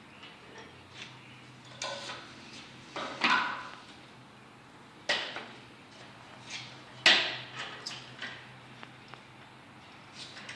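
Brad nailer firing fasteners into the toolbox's wooden boards as the four sides are joined: a handful of sharp shots, the loudest about three and seven seconds in, among lighter knocks of the boards being handled.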